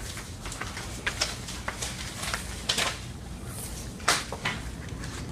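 Indoor room tone with a steady low hum, broken by scattered light clicks and knocks at irregular intervals, the loudest knock about four seconds in.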